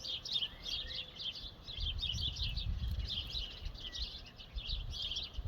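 Many birds chirping at once in a dense, continuous morning chorus of short, quick notes. A low rumble swells and fades beneath it, loudest about two seconds in.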